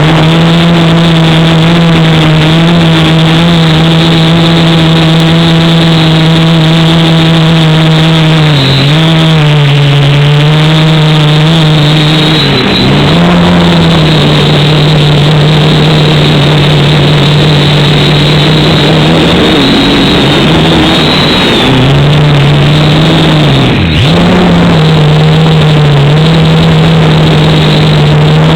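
Quadcopter's electric motors and propellers whining at a steady pitch, loud and close. The pitch dips and comes back a few times, about a third of the way in, just under halfway and again near the end, as the throttle is eased off and opened again.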